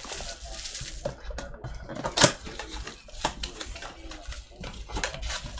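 Cardboard trading-card blaster boxes being handled on a table: a string of irregular clicks, knocks and scrapes, the loudest a sharp knock a little over two seconds in.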